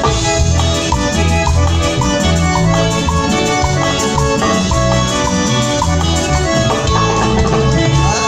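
Live cumbia band playing through a PA: a steady dance beat with drums and a repeating bass line under a stepping melody.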